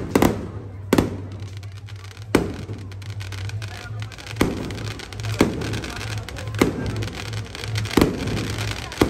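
Firework bangs going off one after another at uneven intervals, about eight sharp reports each with a short echo, over music with a steady low bass.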